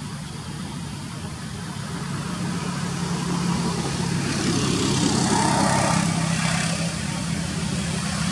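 A motor engine running steadily, growing louder over the first few seconds and then holding.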